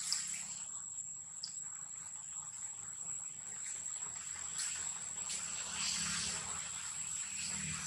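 Insects droning in the forest: one steady high-pitched tone held throughout, with soft bursts of rustling around it.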